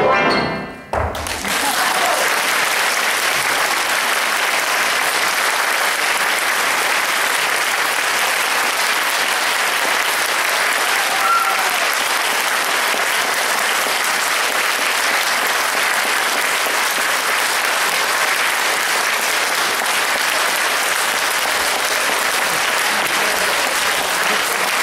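Concert audience applauding steadily after a piano duet ends. The piano's final notes die away within the first second, and the clapping then carries on evenly.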